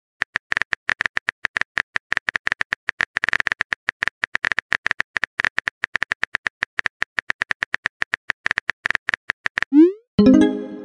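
Rapid, even clicking of a phone keyboard typing sound effect, about eight to ten taps a second, running for roughly nine and a half seconds. It stops with a short rising swoosh like a message-sent sound, followed by a brief pitched sound near the end.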